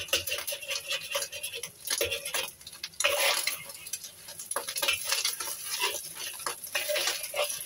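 Metal spatula scraping and tapping against a black wok while eggs fry in hot oil, with a steady sizzle underneath. The strokes come irregularly, with a longer, louder scrape about three seconds in.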